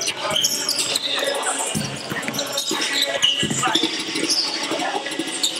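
Basketball game on a hardwood gym court: the ball bouncing as it is dribbled, with short high squeaks and voices of players and onlookers echoing in the hall.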